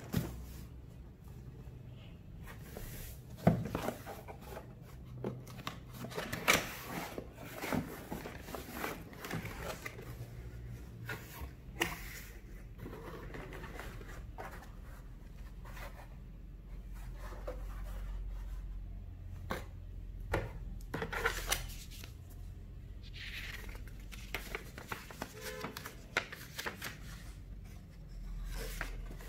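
Cardboard packaging and paper being handled: scattered rustles, scrapes and knocks as the box is opened and its contents pulled out, with one sharp knock about three and a half seconds in. Near the end a folded paper leaflet is unfolded.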